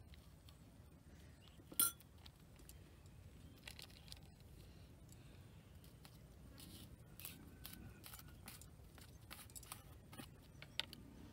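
Small handling sounds while preparing a sauce: one sharp clink about two seconds in, then scattered soft clicks and rustles as a small packet and a small plastic container are handled over a ceramic bowl.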